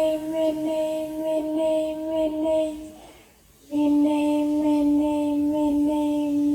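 A voice singing one long, level note, broken off about three seconds in and picked up again a moment later on a slightly lower pitch.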